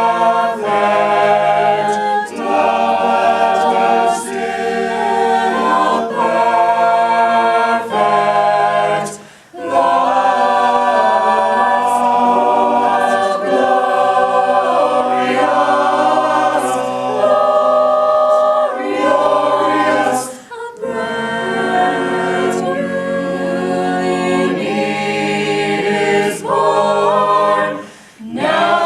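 A cappella choir singing a hymn in sustained, slowly changing chords, with brief pauses between phrases about ten and twenty seconds in and just before the end.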